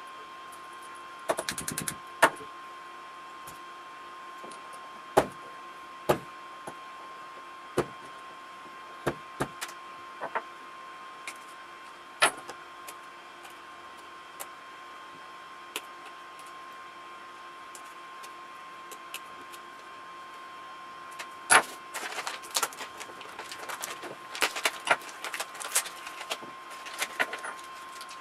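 Irregular clicks, taps and clinks of small hand tools and hardware being worked on an RC crawler's front hub assembly, turning into a quicker flurry of clicks about three-quarters of the way through. A steady faint high whine runs underneath.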